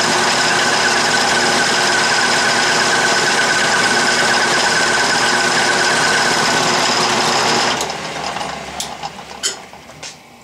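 12-inch Atlas lathe running while turning a taper in aluminium stock: a loud, steady, noisy machine whine with several steady tones. About eight seconds in the sound stops and dies away, leaving a few sharp clicks.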